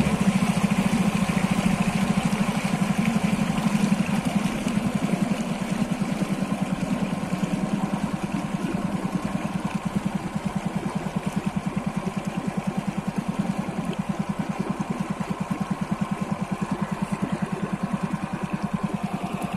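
Small boat's engine running steadily under way, with an even, rapid pulse.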